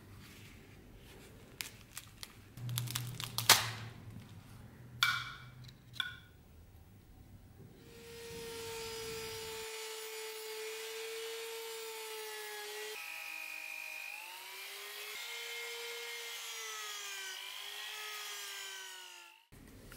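Knocks and clicks of a metal dagger being handled on a workbench, the loudest about three and a half seconds in. About eight seconds in a rotary tool with a small sanding drum starts grinding on the dagger's hilt; its steady whine dips and wavers in pitch as the drum bears on the work, and it stops just before the end.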